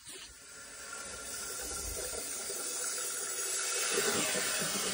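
Water rushing into the drained tank of a Rheem Performance electric water heater as the supply valve is opened slowly: a hiss that grows louder over the first couple of seconds, then holds steady.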